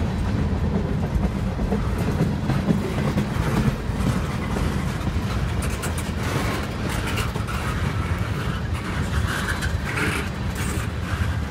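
A freight train of tank cars rolling past: a steady, loud low rumble of steel wheels on the rails. From about six seconds in there is brighter metallic clatter and screeching.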